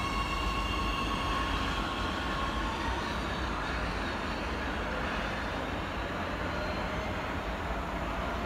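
Oslo Metro MX3000 electric train pulling out and running away down the track: a high electric whine at the start that fades over the first couple of seconds, then a steady rumble of wheels on rail.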